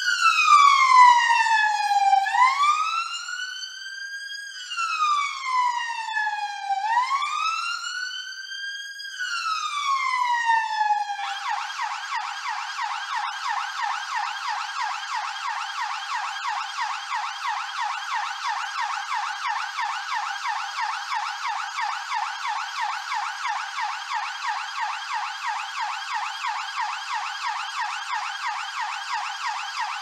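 London police car siren on its slow wail, rising and falling about every four and a half seconds. About eleven seconds in it switches to a rapid yelp that runs on steadily.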